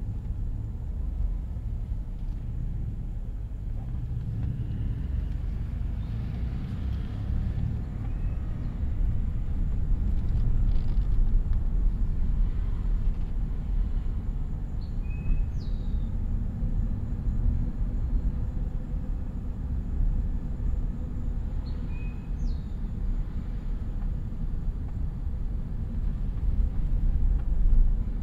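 Car driving along at a steady pace: a continuous low rumble of road and engine noise, swelling slightly for a few seconds partway through.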